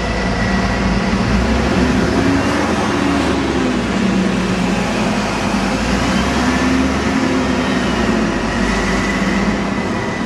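Double-decker bus engine running as the bus drives past and pulls away, its note rising and falling several times, over steady street traffic noise.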